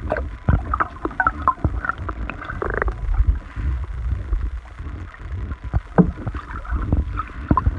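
Underwater sound picked up by a submerged iPhone 7's own microphone: a constant low rumble of moving water, broken by frequent sharp clicks and knocks and short bubbly chirps.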